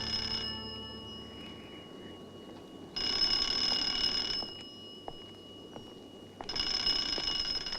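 Telephone bell ringing twice, each ring about a second and a half long, with the tail of an earlier ring at the start.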